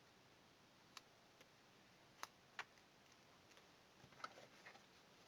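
Near silence with a handful of faint, scattered clicks from hands handling double-sided tape and a rubber strip: two clearer ticks about two seconds in and a small cluster after about four seconds.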